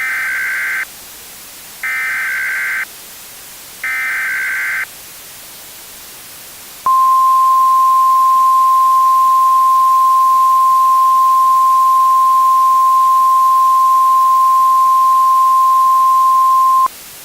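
NOAA Weather Radio emergency alert signal. First come three one-second bursts of SAME digital header data, about a second apart. After a short pause the steady 1050 Hz Weather Radio warning tone sounds for about ten seconds, over a faint hiss of radio static. This sequence marks the start of a new alert, here a winter storm watch.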